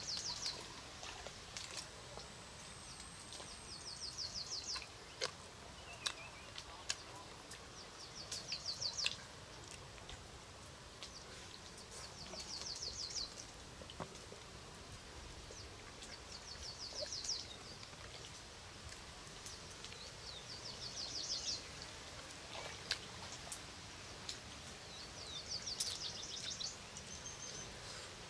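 A bird's rapid trilled call, high-pitched and lasting one to two seconds, repeated about every four seconds over steady outdoor background noise. A few sharp clicks come between about five and nine seconds in.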